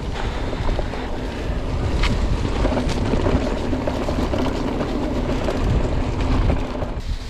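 Mountain bike ridden along a trail, heard from an onboard action camera: steady wind rushing on the microphone mixed with the rattle of the bike over rough ground, with a couple of sharper knocks about two and three seconds in.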